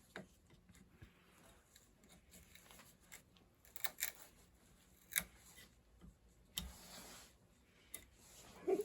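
Faint, irregular small clicks, snaps and scrapes of waste wood being chipped and trimmed off a pinewood derby car's pine block by hand, with sharper snaps near the middle and end.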